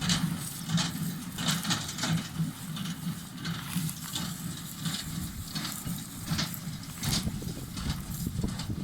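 Tractor engine running steadily while a hay baler works, with sharp mechanical clacks repeating every half second to a second.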